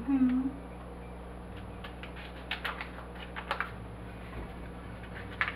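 Paper packet of brown gravy mix being handled, opened and emptied into a pan: a scattering of sharp crinkles and light clicks, thickest a little past the middle.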